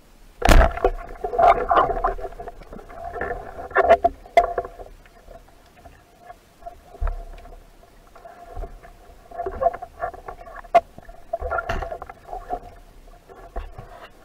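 Underwater sound picked up by a diving camera: repeated short bouts of gurgling with sharp clicks scattered through, the loudest click about half a second in.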